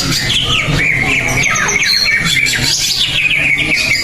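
Cucak ijo (green leafbird) singing loudly: a continuous run of quick, rising and falling whistled notes with no break.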